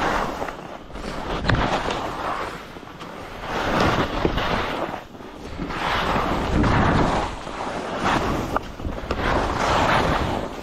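Skis scraping and carving through snow on bumpy terrain, swelling with each turn every second or two, with wind rushing over the microphone.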